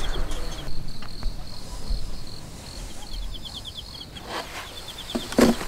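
Insects chirping at dusk: a fast, even pulsed trill, high-pitched and steady. Near the end come a few sharp knocks as camp cookware is handled on the table.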